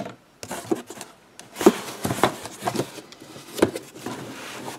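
An old cardboard box being closed by hand: a fibreboard sheet laid in over the parts, then the cardboard flaps folded down. Rustling and scraping of cardboard with a few sharp knocks along the way.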